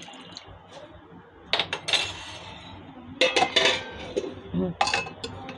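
Stainless steel kitchenware clinking and clattering: a steel plate handled and set over a steel bowl, giving a series of sharp metallic clinks with a short ring, starting about a second and a half in.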